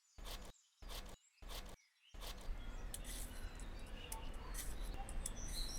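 Faint scraping of a peeler on a raw beetroot: short strokes about every two-thirds of a second, then a low steady scraping with light clicks. Faint bird chirps come in near the end.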